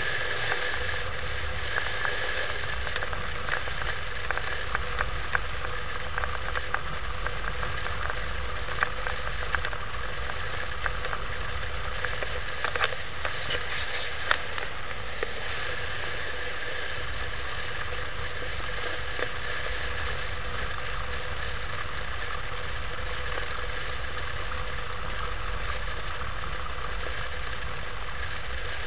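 Motorcycle riding steadily at road speed: engine drone mixed with wind and road noise on the microphone, with scattered small crackles.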